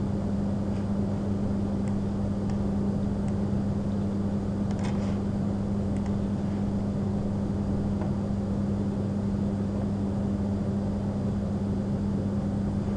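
Steady low electrical hum with background hiss, unchanging throughout, with a few faint clicks scattered through it.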